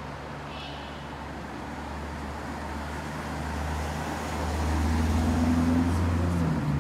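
Maserati GranCabrio's V8 running at low speed as the car rolls slowly past, a low engine rumble that grows louder and peaks about five seconds in, then eases off.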